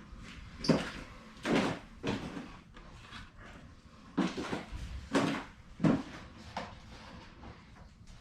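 Plastic hydroponic net cups and buckets being handled and set in place: a series of about seven irregular clattering knocks.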